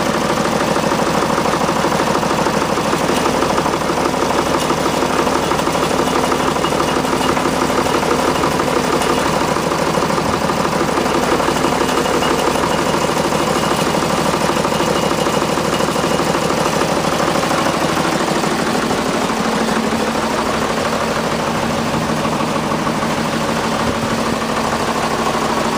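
Tractor's front-end loader engine running steadily while the loader holds and lifts a heavy load on straps; its note changes about three-quarters of the way through.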